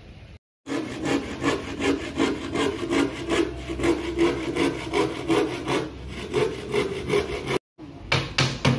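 A hand saw cutting a plywood board in steady back-and-forth strokes, about three a second. After a short break near the end comes a quick run of sharp knocks.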